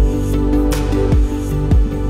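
Electronic background music: sustained synth chords over a beat of deep drum hits.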